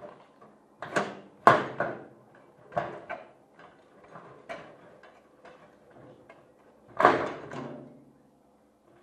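Metal knocks and clanks from a fertiliser spreader's sheet-steel hopper cone being worked loose and lifted off. There is an uneven run of sharp hits that ring on briefly, the loudest about one and a half seconds in and about seven seconds in.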